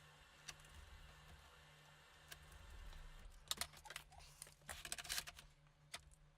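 Scattered light plastic clicks and taps from a laptop being handled, a quick cluster of them about three and a half to five seconds in.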